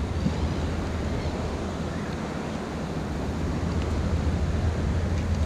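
Wind buffeting the microphone, with sea surf washing against the rocks of a breakwater.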